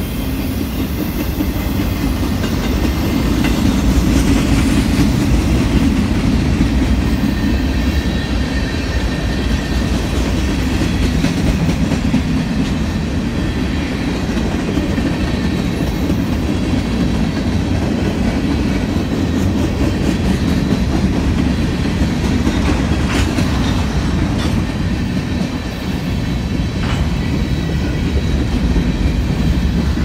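Freight cars of a mixed freight train rolling past close by: a steady rumble of steel wheels on the rails with clickety-clack over the rail joints, and a couple of sharp clanks about three-quarters of the way through.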